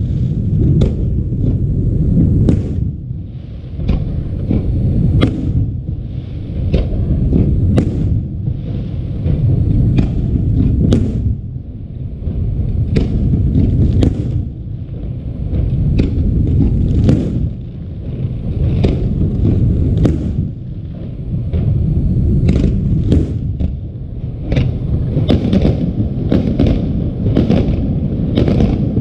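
Fireworks display: a continuous low booming rumble of bursting shells, with frequent sharp cracks and pops scattered throughout.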